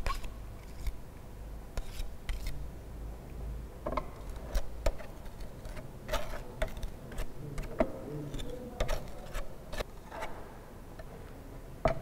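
Steel spatula blades scraping against each other and across a glass plate while working soil paste. The sound is a string of irregular light metallic clinks and short scrapes.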